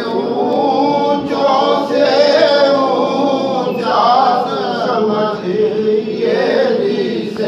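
A group of men chanting loudly together in unison, a continuous religious chant of many voices with no pauses.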